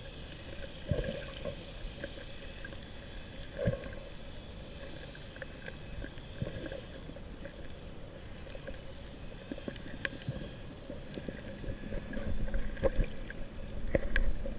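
Underwater sound picked up by a camera held just below the surface: a muffled wash of moving water with scattered sharp clicks. It grows louder and rumbles in the last couple of seconds as the water is stirred near the camera.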